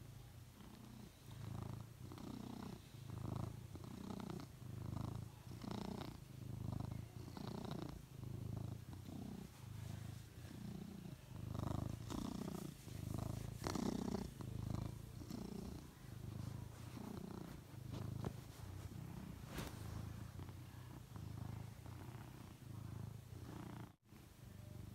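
Tabby cat purring steadily while being stroked. The purr swells and fades with each breath, a little more than once a second.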